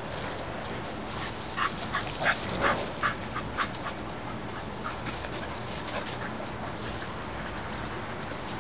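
Dog at play giving a quick run of about seven short, high yips between one and four seconds in.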